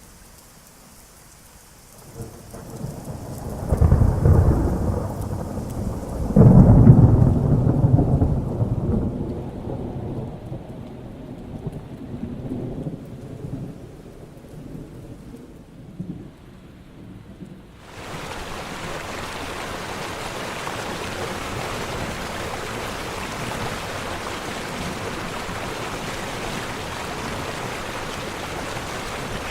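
Thunder rumbling, with two loud low peals about two and six seconds in that die away over the next several seconds. At about eighteen seconds steady heavy rain begins suddenly and runs on evenly.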